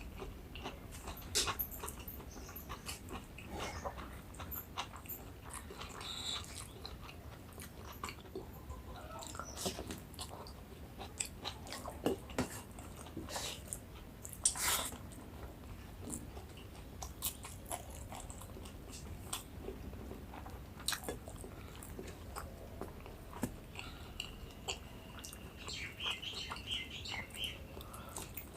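Close-miked eating: a person chewing and biting through a rice-and-curry meal, with irregular wet mouth clicks and occasional sharper crunches.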